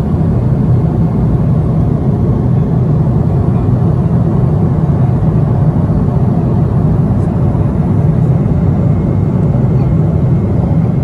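Airliner cabin noise in flight: a steady, loud, low rumble of the jet engine and rushing air, heard from a window seat right beside the engine.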